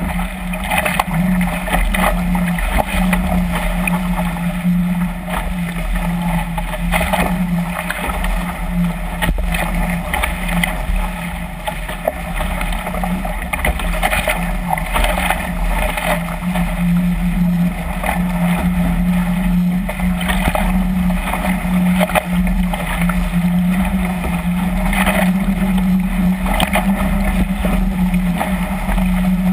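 Chrysler Musketeer catamaran hull driving through choppy waves at speed: continuous rushing water with irregular splashes of spray, over a steady low drone.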